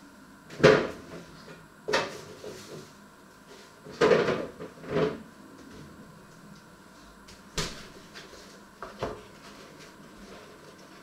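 A series of knocks and clunks from things being handled in a kitchen, about six spread over several seconds, the first the loudest.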